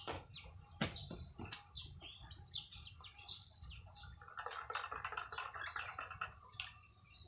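Outdoor daytime ambience: insects keep up a steady high-pitched trill, birds chirp briefly, and light clicks and taps come from cups and utensils being handled at a small table while coffee is made.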